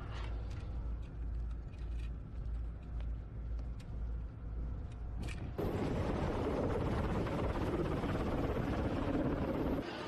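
Pulsing low wind rumble on a body-worn camera on a ship's deck, with a few sharp clicks. About halfway it changes abruptly to a louder, steady rushing noise.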